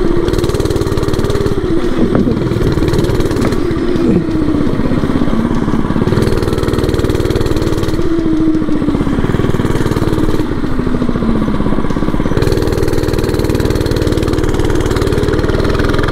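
Oryxearth 105cc four-stroke minibike engine running under the rider, its pitch rising and falling several times as the throttle is worked, then holding steadier near the end.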